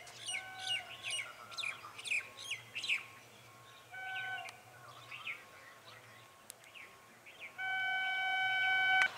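Small birds chirping in quick repeated calls for the first few seconds, then a train's air horn: a short toot about four seconds in and a long, steady blast near the end, which is the loudest sound.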